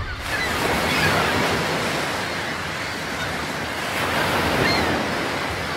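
Ocean waves washing, an even rush of surf that swells and eases twice.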